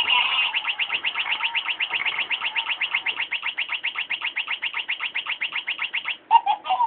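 A battery-powered robotic toy mouse giving a rapid electronic chirping through its small speaker, about eight chirps a second. The chirping breaks off a little before the end, then a few last chirps come before it stops.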